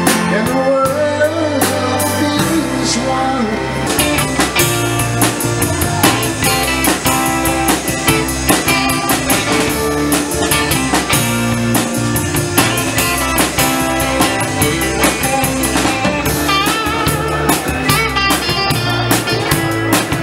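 Live band playing: electric guitar over a drum kit keeping a steady beat.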